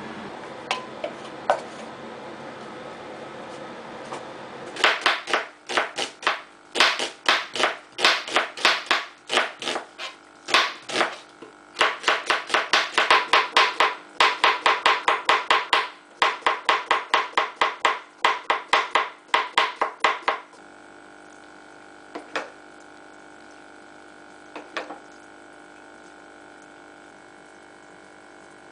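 Kitchen knife chopping a cucumber on a plastic cutting board: a fast, even run of sharp cuts, about four a second with brief pauses, starting about five seconds in and stopping about twenty seconds in. Two light clicks follow.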